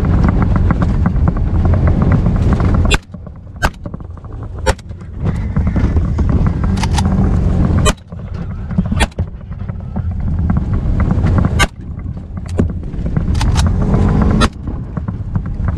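Rapid gunshots fired from a vehicle, about a dozen sharp cracks at irregular intervals of roughly a second, starting about three seconds in. Before the shots the vehicle's low driving rumble fills the sound.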